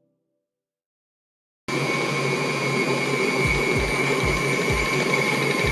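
Electric mixer switched on about two seconds in, running steadily at speed with a high whine and a low pulse about three times a second as it beats butter and sugar for a pound cake batter.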